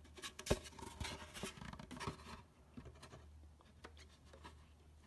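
Wooden cat-house panels being handled and fitted together: light knocks, clicks and rubbing, busiest in the first two seconds, with one sharper knock about half a second in, then only a few faint ticks.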